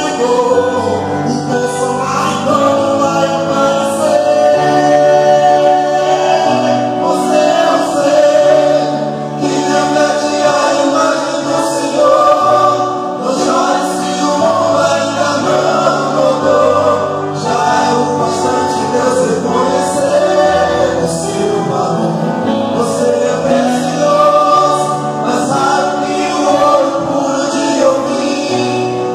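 Male vocal group singing a gospel song together into microphones, several voices in harmony over a steady instrumental accompaniment of sustained low notes.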